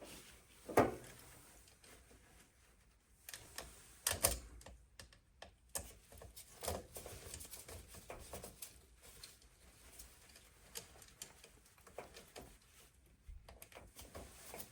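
Irregular light clicks and taps of hand work on a circuit board's wiring, with two sharper knocks, about a second in and about four seconds in: wire connectors being seated and terminal screws tightened.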